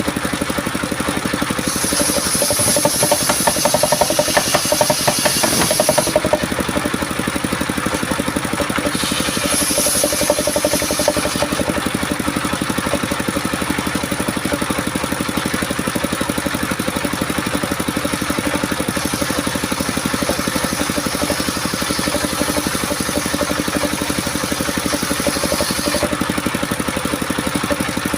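Engine-driven homemade sawmill running steadily while its blade cuts coconut wood, the cut adding a high-pitched rasp three times: a few seconds in, again around ten seconds, and for a longer stretch later on.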